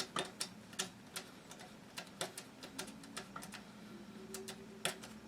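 Light, irregular metal clicks of a screwdriver working a screw into a rifle's lower receiver, a few clicks a second, the sharpest right at the start.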